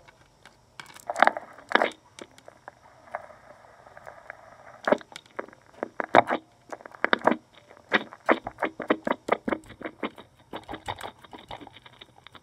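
Plastic toy microphone being handled close to the recording mic: a run of irregular clicks, taps and knocks, coming thicker and faster in the second half.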